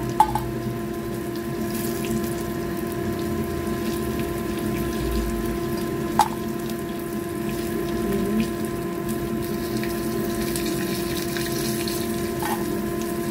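Flour-coated fish pieces frying in hot oil in a pan, a steady sizzle over an even hum. Three sharp clicks, near the start, about halfway and near the end, as the fried pieces are lifted out with chopsticks.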